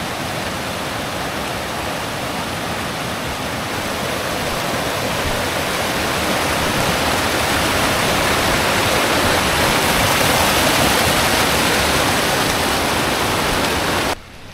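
A fast mountain stream rushing over rocks and under a log footbridge: a loud, steady rush of whitewater. It grows a little louder toward the middle and cuts off suddenly near the end.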